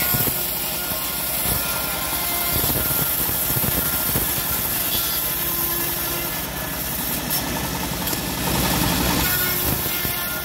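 Homemade bandsaw sawmill running steadily, its stationary engine driving the band blade.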